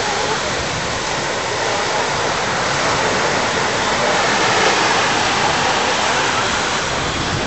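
Steady rushing beach ambience, an even noise of wind and water at the shore, with no distinct events.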